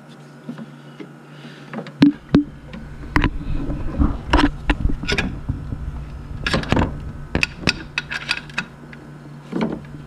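Irregular metal clinks and knocks as a new water pump is held against the engine block and its bolts are worked in by hand, starting about two seconds in, over a low rumble and a steady low hum.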